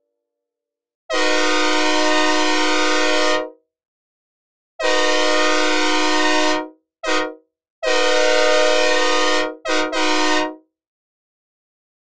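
Synthesized recreation of a Nathan K5H/K5L five-chime train horn, dry with no reverb: a steady multi-note chord sounded long, long, short, long, then two quick short blasts, each cutting off cleanly.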